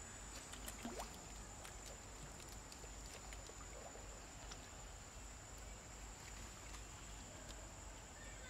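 Faint small splashes and drips of water as young macaques paddle and wade at a stone-edged pond, with a steady high-pitched hum throughout.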